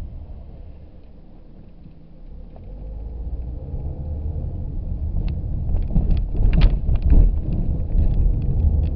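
Car interior rumble, low while waiting at a stop sign, then rising as the car pulls away and gathers speed. A cluster of sharp knocks about five to seven seconds in comes from the tyres crossing railroad tracks.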